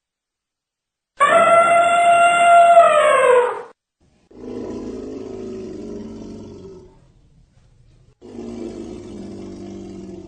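Elephant trumpeting: one loud, high call held about two and a half seconds that drops in pitch at the end. It is followed by two lower, quieter calls of about two to three seconds each.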